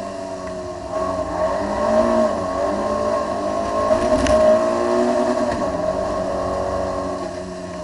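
Citroën AX GTI's four-cylinder engine heard from inside the car, running hard round a race circuit, its pitch wandering up and down with the throttle.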